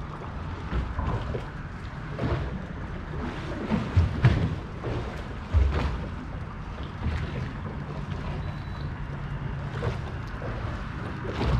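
Water lapping against a small fiberglass boat's hull, with wind on the microphone and several low thumps and knocks scattered through.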